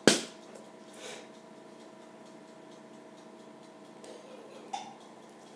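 Quiet room tone with a faint steady hum, opened by one short sharp noise at the very start, with a few faint soft ticks later on.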